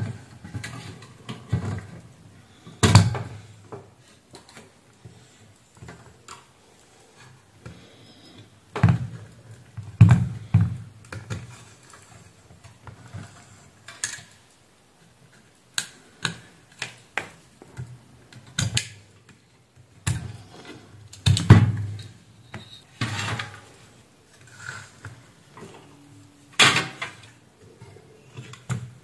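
Handling noise on a workbench: scattered clicks, knocks and rattles from a circuit board, wire connectors and multimeter probes being handled, with several louder thumps spread through.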